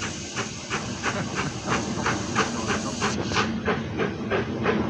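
BR Standard Class 9F 2-10-0 steam locomotive working a heavy goods train, its exhaust beating evenly at about three chuffs a second and growing louder.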